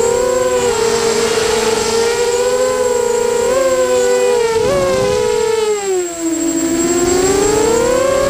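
Electric motors and propellers of a small multirotor drone whining in flight, several tones shifting against one another as the motor speeds change. Around six seconds in the pitch drops and the sound dips, then it climbs back up.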